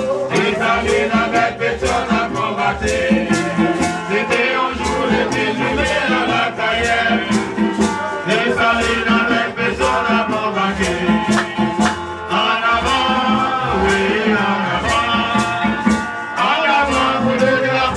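Haitian live band music: singing over a steady, rattling shaker beat.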